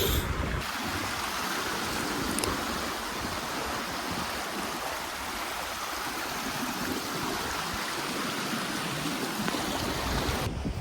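River water flowing steadily, a continuous rush that comes in sharply about half a second in and cuts off just before the end.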